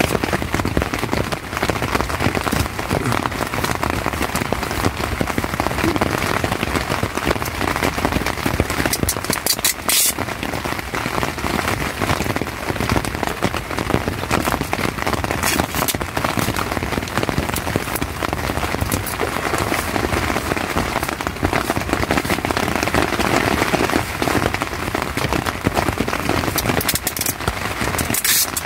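Heavy storm rain falling steadily on a tent's flysheet, heard from inside the tent. Two short high rasps, about ten seconds in and near the end, as gaffer tape is pulled off the roll to patch a leak.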